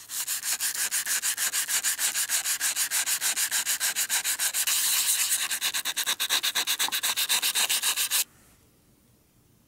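Folded 120-grit sandpaper rubbed quickly back and forth over the steel of a Super Banko hatchet head, an even hissing scrape of about five strokes a second. It stops suddenly about eight seconds in.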